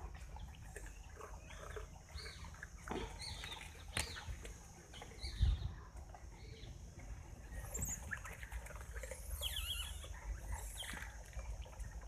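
Grey langurs scuffling and shifting about close by while being hand-fed, with a few brief high squeaks. A sharp click comes about four seconds in and a dull thump a little later.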